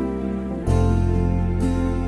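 Soft instrumental background music with sustained notes; a deep bass note comes in about two-thirds of a second in.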